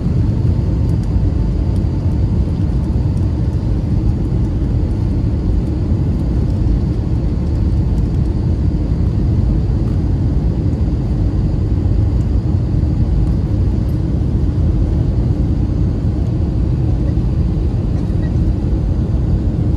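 Steady low rumble of jet engines and rushing air inside the cabin of an Airbus A320-family airliner descending on approach to land.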